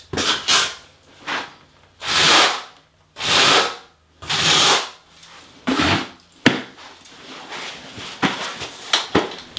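Trowel scraping thinset mortar onto the shower wall board in a series of separate strokes, each about half a second long, followed by a few sharp clicks and knocks near the end.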